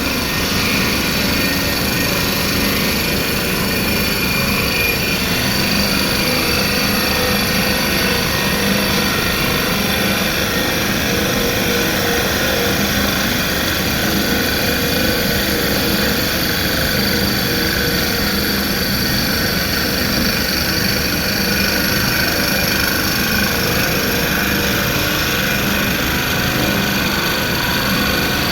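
CNC turning lathe running steadily: a dense mechanical rumble with several steady whining tones above it, unchanging throughout.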